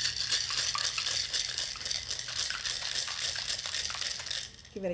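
Ice cubes and liquid being shaken hard in a stainless steel cocktail shaker: a dense, continuous rattle of ice against metal that stops about four and a half seconds in.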